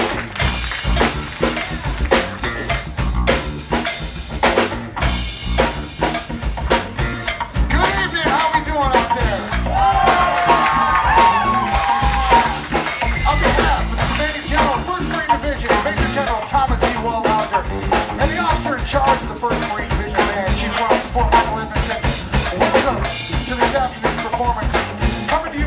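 Live big band playing a drum-led groove, with drum kit, bass guitar and electric guitar. A man's voice on the microphone comes over the band around the middle.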